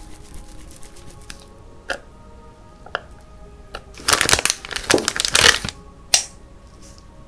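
Soft background music with a few sharp clicks, and about four seconds in, a loud crackling, crunching handling noise lasting a second and a half.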